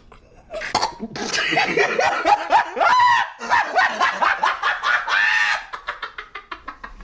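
High-pitched voices laughing and shrieking in quick rising bursts for several seconds, then trailing off.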